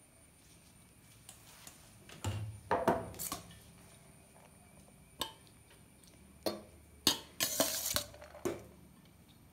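A spoon clinking and scraping against a steel bowl and a clay pot as cooked basmati rice is scooped out and layered in. The sound comes as a few short clusters of clinks and scrapes, with single knocks in between.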